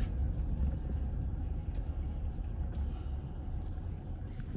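Car interior rumble while driving: a low, steady drone of engine and road noise heard from inside the cabin, with a few faint ticks.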